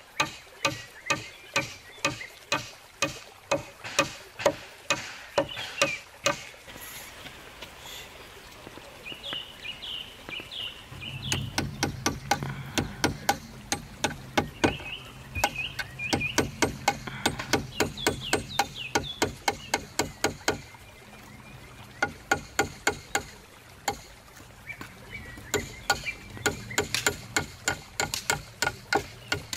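Hammer striking nails into green wooden poles, steady blows about two to three a second with two short lulls. Birds chirp in the background.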